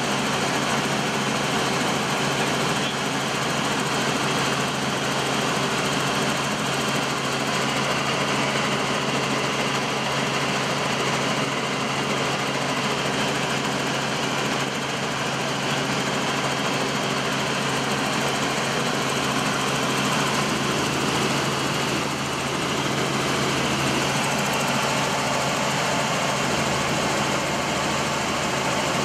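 Robinson R44 Raven I helicopter in flight, heard from inside the cabin: the steady drone of its six-cylinder piston engine and rotors, a constant low hum under an even rushing noise.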